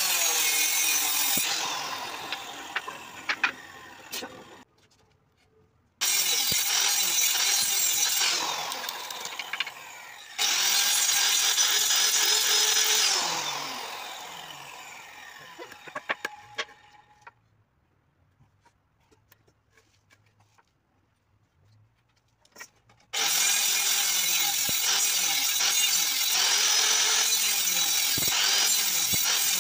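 Handheld electric circular saw cutting wood in short runs, its motor's whine falling away after each cut as the blade coasts down; it starts again about 6 s in, again after about 10 s, and once more near the end, running steadily. In the pause between runs come a few light knocks from a chisel chipping out the waste between the saw cuts.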